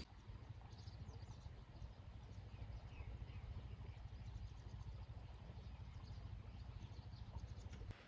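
Faint outdoor ambience: birds chirping now and then over a steady low rumble.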